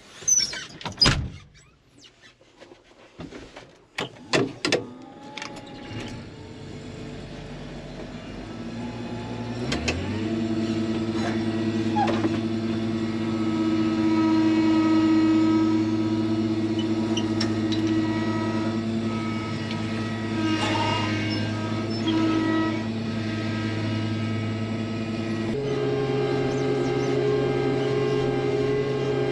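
A few clicks and knocks, then an engine winds up and settles into steady running about ten seconds in. Its pitch steps up near the end.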